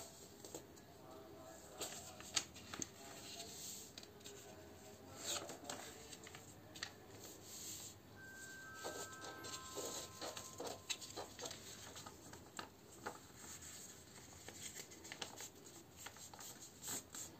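A4 paper being folded and creased by hand on a wooden tabletop: crackles, rustles and soft rubbing as the folds are pressed flat, with a few sharper crinkles in between.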